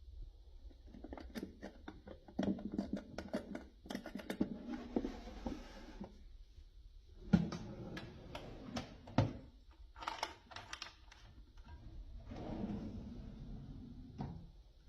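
Irregular clicks, taps and knocks of objects being handled, with two louder knocks around the middle.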